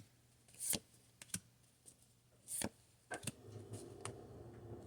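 Pokémon trading cards being handled and slid past one another, a few short sharp swishes about a second apart, with a faint low hum setting in about three seconds in.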